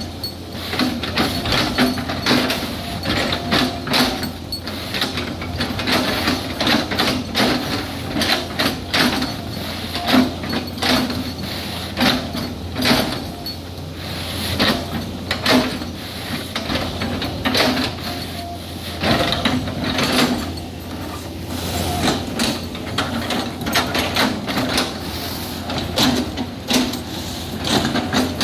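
Hydraulic excavator's diesel engine running steadily while its bucket chops an oil palm trunk into chips, with repeated sharp, irregular knocks and cracks as the bucket bites into the fibrous wood.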